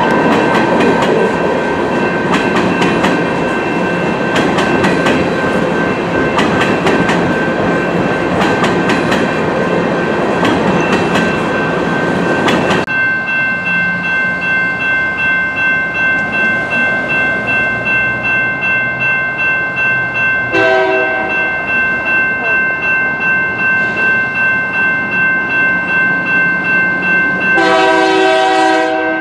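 Freight cars rumbling and clattering over the rails through a level crossing with the crossing bell ringing. After a cut, the crossing bell keeps ringing while an approaching freight locomotive sounds its air horn: a short blast about 20 seconds in and a longer one near the end.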